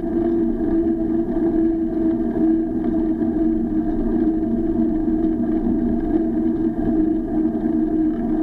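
Steady hum and rumble of a bicycle riding along an asphalt road, picked up by an SJ4000 action camera mounted on the bike: tyre and wind noise held at one pitch with no change.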